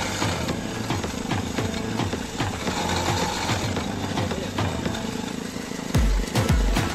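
Engine-driven sugarcane juice crusher running, its flywheel spinning and ridged steel rollers turning as cane is fed through, with a steady rhythmic knock. About six seconds in, loud deep music beats come in over it.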